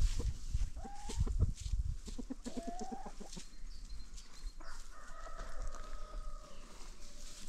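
Chickens clucking in a quick run of clucks with short rising calls, then a rooster crowing in one long drawn-out call about two-thirds of the way through.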